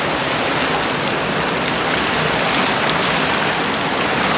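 Steady rush of floodwater pouring over a small concrete dam that is full to overflowing after heavy rain.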